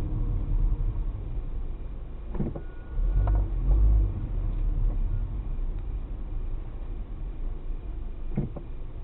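Car driving, with a steady low rumble of engine and road noise that swells about three seconds in. Short knocks sound about two and a half seconds in and again near the end.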